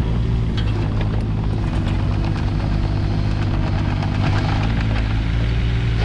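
Kubota KX016-4 mini excavator's diesel engine running steadily, with a few light clicks and clanks over it.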